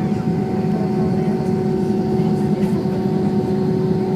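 Airbus A320 jet engines running, heard inside the passenger cabin as a steady rumbling drone with a constant hum.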